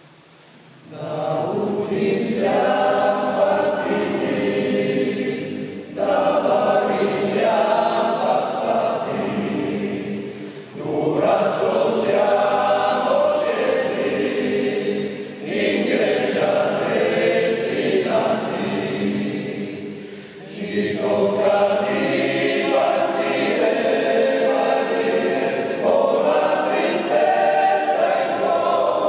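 Men's choir singing a cappella in several voices, in long phrases with short breaks between them; the singing begins about a second in.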